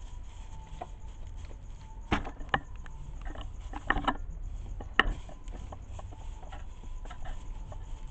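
A duckling pecking dried corn kernels off a tile floor: its bill knocks against the tiles and kernels in irregular taps, with a few sharper knocks about two, four and five seconds in.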